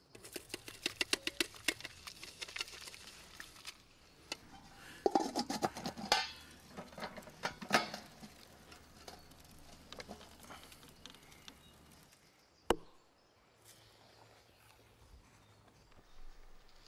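Damp wood ashes being scraped and tipped into a metal pot to be boiled into lye: a run of quick scraping clicks, then several clinks of metal with a short ring, and a single sharp knock later on.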